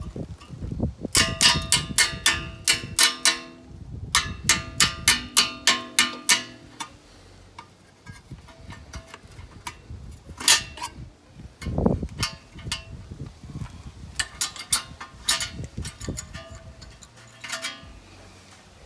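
Hand ratchet clicking in quick even runs, about five clicks a second, as it turns the bolts that hold a brake caliper cover, with a faint metallic ring under the clicks. There is a single dull thump about two thirds of the way through.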